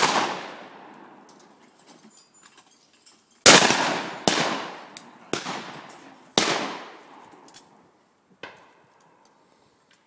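Shotgun shots, each a sharp report with a long echoing tail. One comes about three and a half seconds in, three more follow about a second apart, and a fainter, more distant shot comes near the end.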